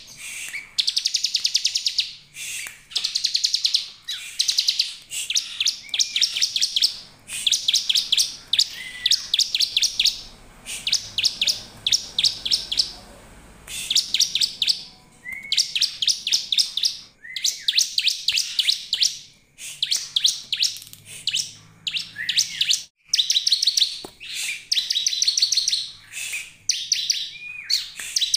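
Bar-winged prinia (ciblek) calling in rapid, high, rattling trills, one short burst after another with brief gaps. Some bursts open with a short rising note.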